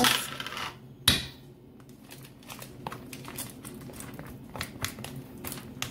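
Clear plastic hummus tub handled and scraped out over a mixing bowl: a sharp plastic click about a second in, then a run of light clicks and crinkles.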